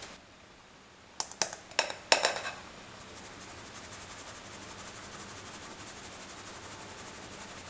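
A few sharp clinks and knocks about a second in, then a metal mesh sieve being shaken over a glass bowl as dry ingredients are sifted. The sifting is a soft, fast, even rattle.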